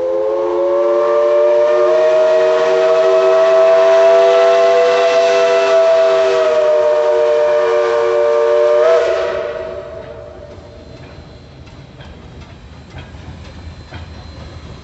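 Southern Railway 4501, a 2-8-2 Mikado steam locomotive, sounding one long blast on its steam whistle: a chord of several notes that rises slightly in pitch as it opens and cuts off about nine seconds in. After that the train rolls on, with a rhythmic clicking of its wheels on the rails.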